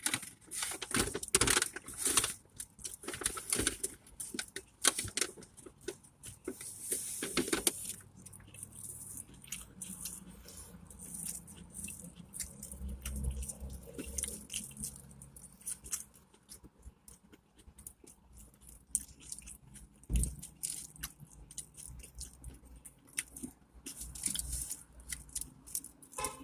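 Close-miked eating: biting into and chewing a burger, with dense crisp crackles for the first several seconds, then quieter, sparser chewing.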